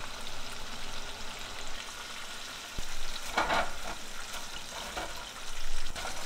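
Chicken pieces coated in tapioca starch deep-frying in hot oil with Thai basil: a steady crackling sizzle that swells louder about halfway through and again near the end.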